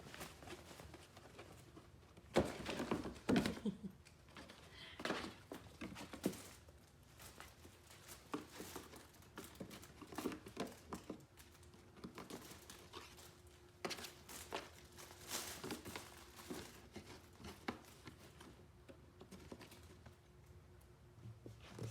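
Kittens scampering and playing, with the light patter and scuffle of small paws and occasional soft knocks. The busiest flurry comes a few seconds in.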